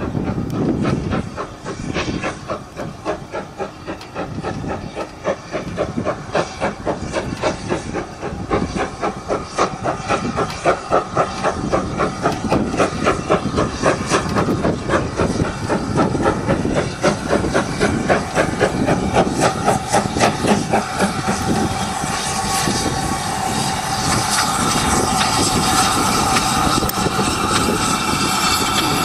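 Steam locomotive working a train towards the listener: a regular rhythm of exhaust beats with steam hiss, growing louder as it approaches. About three quarters of the way in the beats give way to a steadier rolling noise as the locomotive and coaches pass close by.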